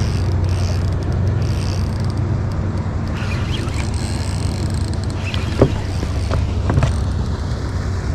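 Steady low engine hum, with two short sharp knocks a little after the middle.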